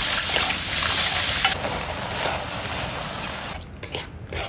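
Sliced king oyster mushrooms sizzling and hissing in a hot frying pan. The hiss is loud at first and drops to a quieter sizzle about a second and a half in, with a few light clicks near the end.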